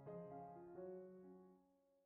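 Soft background piano music: a few held notes that die away near the end.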